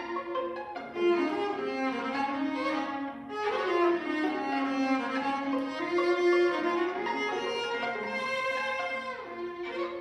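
String quartet of two violins, viola and cello playing held bowed notes, the chords changing every few seconds.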